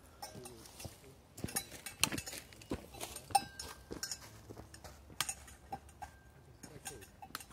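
Footsteps on a dirt and gravel trail with the taps of a trekking pole, in an irregular walking rhythm. Gear hanging from a loaded backpack clinks and knocks with each step.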